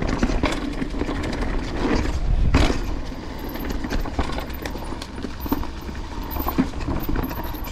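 Banshee Legend downhill mountain bike rolling over a trail: tyres on dirt and stones with irregular clicks and clattering, including the chain rattling against the frame, over a low wind rumble on the camera microphone. The clattering is heaviest about two and a half seconds in.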